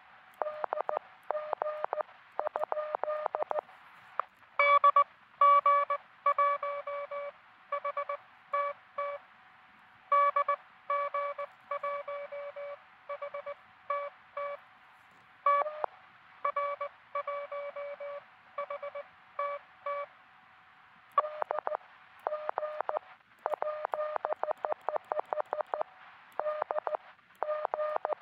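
Morse code tones from a QRP truSDX transceiver. Fast, quieter code sounds in the receiver's steady hiss near the start and again from about 21 s on. In between, a louder, slower stretch of keyed sidetone plays with silent gaps, typical of the operator's own transmission with the receiver muted.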